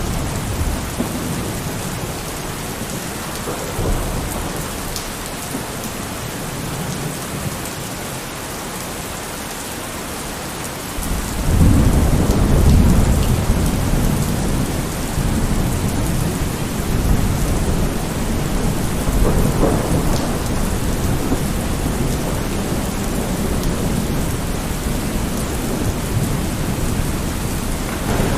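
Steady rain falling. About eleven seconds in, a long, low rumble of thunder comes in suddenly and rolls on, swelling again a few times.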